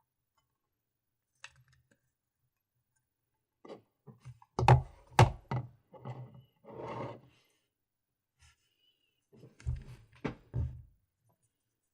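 Close-miked unpacking of a GoPro Hero 4 Silver: hard plastic packaging and parts being handled. There is a cluster of sharp knocks and clicks with a short scraping rustle, a pause, then a second cluster of knocks.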